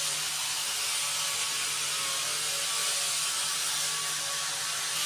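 A power tool running steadily with an even whirring hiss and a faint hum, without changes in pitch or strikes.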